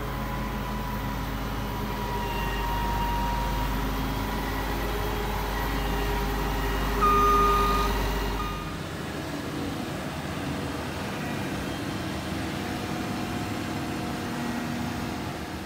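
Combine harvester running steadily, with a short high beep about seven seconds in; the deep rumble underneath drops away shortly after.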